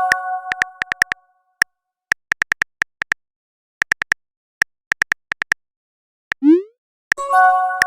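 Sparse electronic background music: scattered sharp ticking clicks, a short rising synth 'bloop' about six and a half seconds in, and a bright synth chord that rings out and fades, once at the start and again near the end, repeating like a loop.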